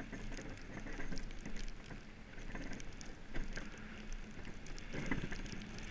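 Monotype XV iceboat's runners sliding over snow-covered lake ice under sail: a steady hiss with frequent small ticks and crackles.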